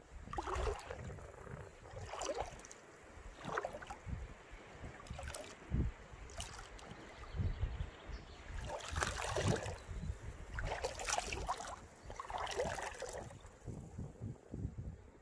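Tall rubber boots (Hunter Original Tall) wading step by step through shallow water, each stride sloshing and splashing at an uneven pace of roughly one a second.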